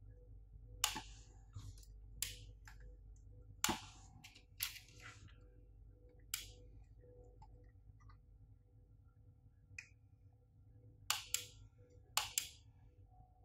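Soldering iron melting solder and rosin flux on circuit-board joints: about a dozen short, irregular crackles and sizzles over a faint steady hum.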